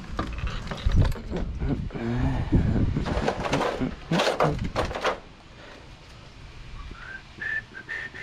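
Clicks, knocks and rustles of small parts and hoses being handled on a workbench, busiest in the first few seconds, then quieter, with a few short high chirps near the end.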